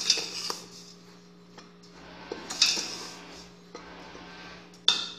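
Metal spoon scraping and clinking against a cooking pan while dry cornmeal, tapioca starch and sugar are stirred together, in a few separate strokes, over a steady low hum.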